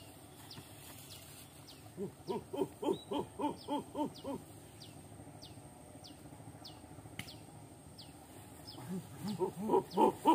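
A quick run of about ten hooting calls, about four a second, starting about two seconds in, with a second run starting near the end. Faint high chirps repeat steadily underneath.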